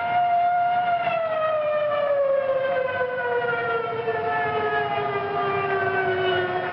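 Air raid siren sounding a steady tone, then from about a second in slowly winding down, its pitch falling steadily: an air raid warning.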